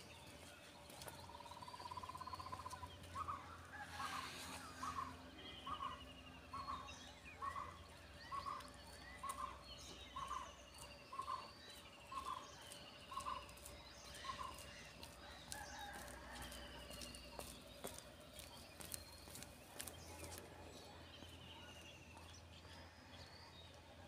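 Birds calling: one bird repeats a short note about a dozen times, roughly one a second, then stops about halfway through, while other birds chirp and trill at a higher pitch. A faint low rumble runs underneath.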